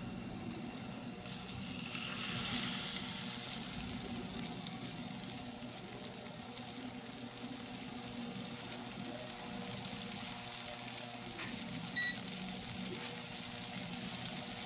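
Cobia fillets sizzling steadily in hot oil in a stainless steel frying pan, growing louder about two seconds in; this is the sound the cook wants, the sign of a pan hot enough to sear. A short beep about twelve seconds in.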